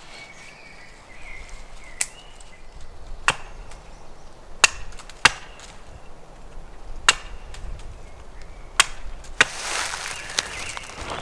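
Seven sharp knocks struck at uneven intervals, like blows of a tool on wood, with rustling near the end.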